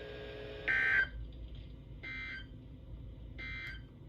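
NOAA Weather Radio end-of-message (EOM) SAME data signal: three short two-tone digital bursts, about a second and a third apart, closing the severe thunderstorm warning broadcast.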